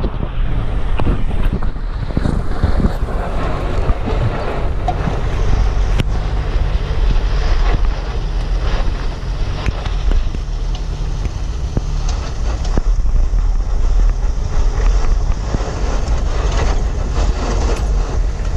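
Wind buffeting a microphone mounted on the outside of a 4x4 as it drives along a dirt trail, over a steady low rumble from the vehicle and tyres. Scattered short knocks and clicks come through the rough-track noise.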